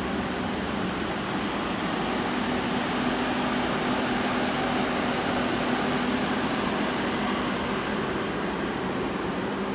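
Steady hum and fan-like whir of powered-up machinery idling, with two faint steady tones in the hum, most likely the Okuma ES-L10 CNC lathe's hydraulic unit and cooling fans.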